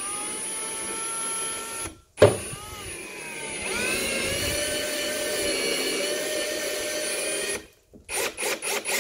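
Ryobi cordless drill running in two long runs, with a sharp knock in the short gap between them, its motor pitch shifting as it drives a fastener through a plastic fender flare into the wheel guard. Near the end comes a quick string of short bursts.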